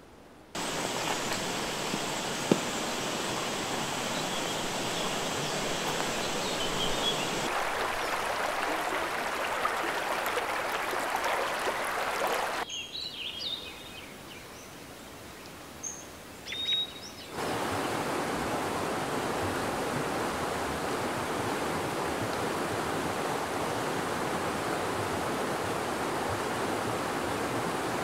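Steady rushing of river water. Partway through it gives way for a few seconds to quieter woodland with a few short, high bird calls.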